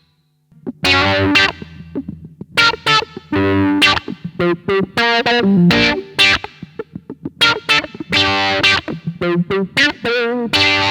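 Electric guitar played through a Behringer BM-11M low pass filter pedal, with distortion: a brief silence, then strummed chords and picked notes. Near the end one chord's tone wavers up and down as the filter sweeps.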